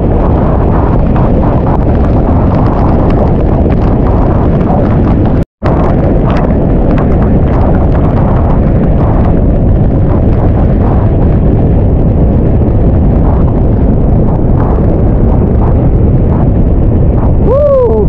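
Victoria Falls' steady, heavy roar of falling water, deep and rumbling, with a short gap about five and a half seconds in. A brief swooping tone sounds near the end.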